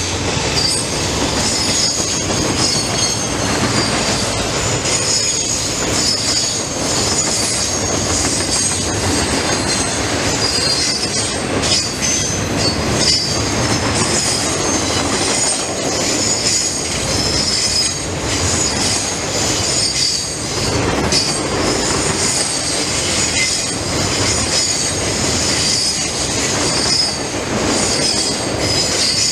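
CSX freight train's cars rolling steadily past, the steel wheels giving a continuous high, wavering squeal over the rumble of the train.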